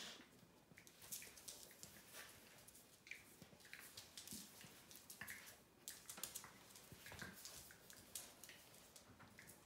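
Faint scuffling of two puppies play-wrestling on a cork floor, with scattered light clicks and taps of claws and paws.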